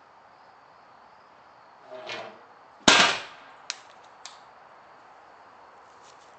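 A short creaky sound, then a single loud, sharp bang with a brief ring-out, followed by two lighter clicks about a second later.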